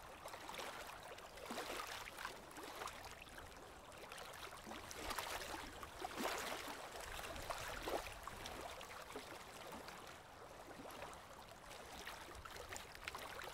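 Faint, steady hiss of light rain and shallow river water, broken by scattered soft rustles of a rain jacket close by.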